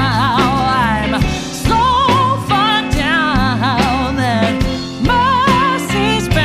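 A song with a singer holding drawn-out, wavering notes with vibrato, wordless at this point, over a steady instrumental backing.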